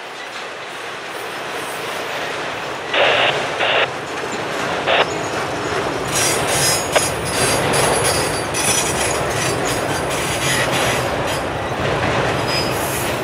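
Freight train of autorack cars rolling past close by: a steady rumble of steel wheels on rail. A few short louder bursts come about three and five seconds in, and intermittent high-pitched wheel squeal sets in from about six seconds.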